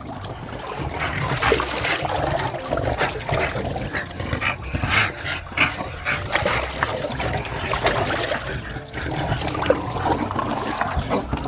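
Short-nosed bulldog-type dogs breathing hard in a tub of water, with water sloshing and trickling as they and a man move about in it.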